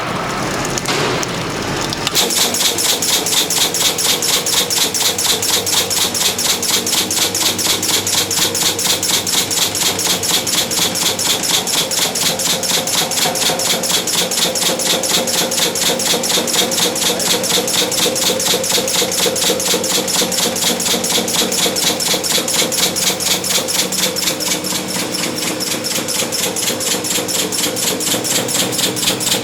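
Resistance seam-welding machine spot welding stainless steel sheet in a fast, even series of pulses, several a second, starting about two seconds in.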